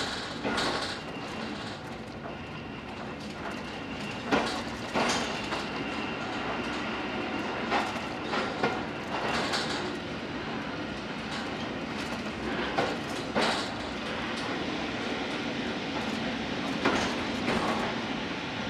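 Railway coach running along the track, heard from inside its front cab: a steady rumble broken by irregular sharp clacks as the wheels cross rail joints.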